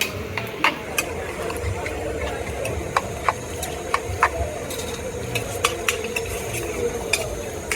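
Irregular sharp clinks of metal utensils against dishes, several a second at times, over a steady background rumble of a street.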